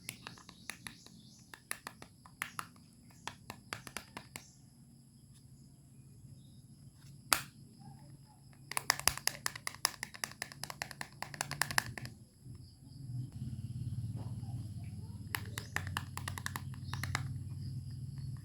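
Quick runs of sharp clicks and taps from small hard objects being handled: a single loud click about seven seconds in, a dense rapid run in the middle and another shorter run near the end, over a low steady hum that grows in the second half.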